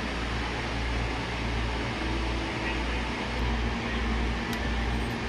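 Steady hum and rush of an air-conditioning unit's fan in a small room, with a few faint light clicks near the end.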